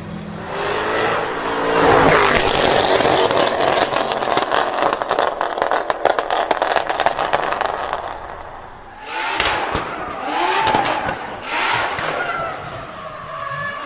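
Performance car engine revving, then a long run of rapid crackles and pops from the exhaust lasting about six seconds. Several shorter revs with scattered pops follow near the end.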